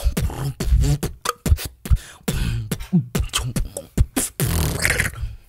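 Human beatboxing into a microphone: a fast run of mouth percussion, sharp clicks and deep kick-like thumps, with a longer hissing sound about four and a half seconds in.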